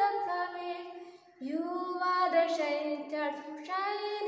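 A woman singing solo and unaccompanied, in long held notes, with a short break for breath a little over a second in.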